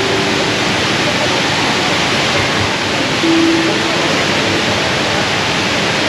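The 40-metre HSBC Rain Vortex indoor waterfall, a steady loud rush of falling water.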